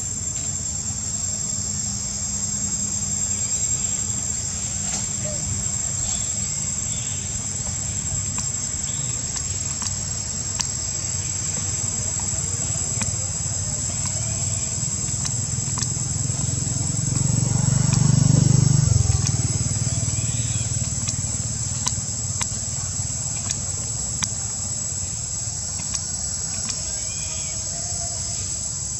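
Insects droning in one steady high tone over a low background hum. A low rumble swells and fades about two-thirds of the way through.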